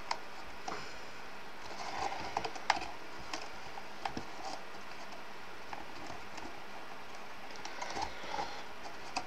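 Light rustling and scattered soft taps of cardstock being handled and pressed as die-cut card side pieces are fitted into a papercraft watering can, with a few more taps about two seconds in and again near the end.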